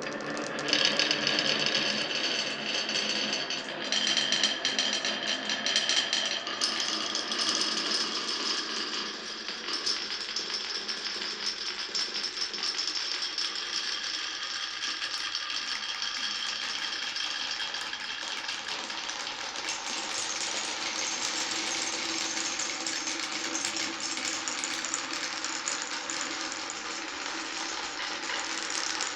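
Many glass marbles rolling and clattering together down a wooden marble run of Cuboro blocks and wooden rails: a dense, continuous rattle with ringing rolling tones.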